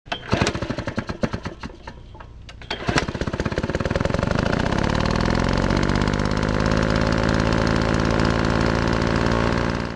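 Power impact wrench hammering: a few short bursts, then a long steady run of rapid impacts that stops suddenly near the end.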